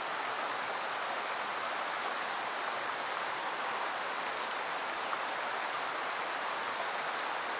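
Shallow river water running steadily over stones, an even rushing hiss.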